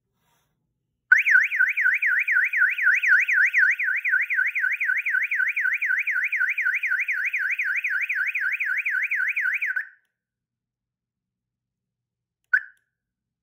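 Tuya Wi-Fi outdoor alarm siren wailing loudly with a fast, even up-and-down sweep, about three and a half sweeps a second, set off by the door contact sensor being opened while the system is armed in Away mode. It cuts off after about nine seconds when the system is disarmed, and a single short chirp sounds near the end.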